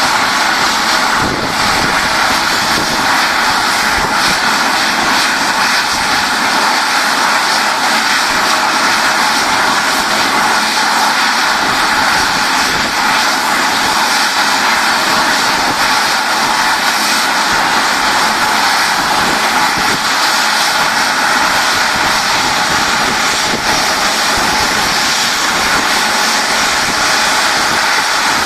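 Airliner engines running steadily as the plane taxis out under its own power, a loud even rush of engine noise with a thin steady whine in it.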